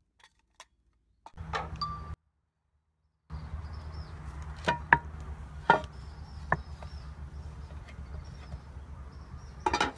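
Metal cookware and plates clinking and knocking: a few sharp clinks between about five and seven seconds in, and another cluster near the end, over a steady low rumble. The sound drops out twice in the first few seconds.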